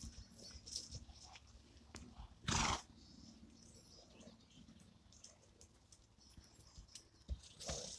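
Horses trotting and cantering loose on grass, with soft scattered hoofbeats. About two and a half seconds in comes a short, loud rush of noise.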